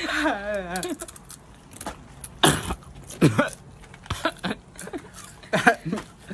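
A man makes a wavering vocal sound as he bites into a spicy tortilla chip. Then come a few short, sharp sounds from his mouth and throat, spread over the next few seconds, as he reacts to the heat.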